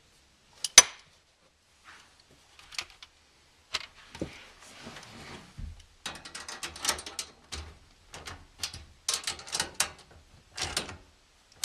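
Ratchet wrench clicking in short rapid runs as bolts are tightened down, with a sharp metal click about a second in and scattered knocks of tool on metal.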